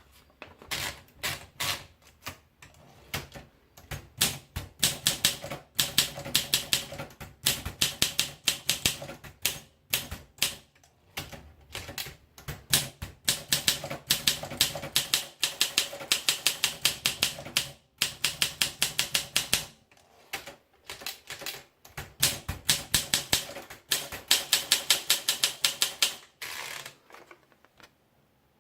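Olympia SM2 manual portable typewriter being typed on: fast runs of sharp key strikes in bursts of a few seconds with short pauses between them, ending with a short rasping sound near the end.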